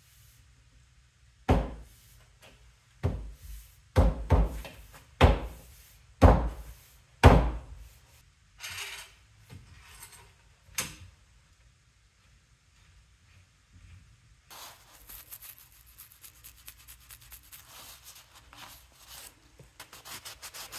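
Wooden workpieces knocked or set down with sharp thuds, about seven times in the first eight seconds, then a few softer knocks. From about two-thirds of the way in, a steady light rubbing or scraping of wood made of many small rapid clicks.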